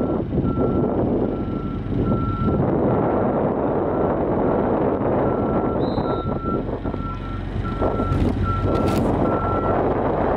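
A vehicle's reversing alarm beeping at one steady pitch, about two beeps a second, stopping shortly before the end, over steady wind noise on the microphone.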